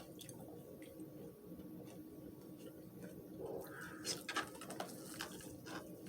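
Faint eating sounds: scattered small clicks of a fork or utensil on a plate, with a cluster of sharper clicks about four seconds in, over a faint steady hum.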